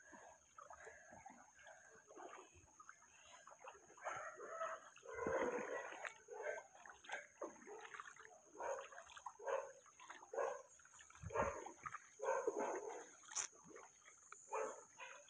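Faint barking and whining of many dogs, short calls following one another irregularly throughout.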